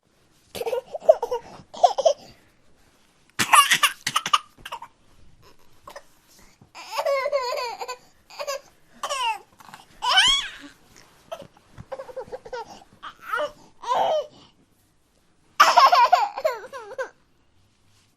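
A baby vocalising in a string of short, high-pitched bursts with breaths and pauses between them, some longer and wavering.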